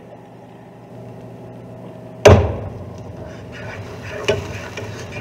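Cookware knocking on the stove while cooking: one loud sharp knock about two seconds in, then a couple of softer knocks, over a steady low hum.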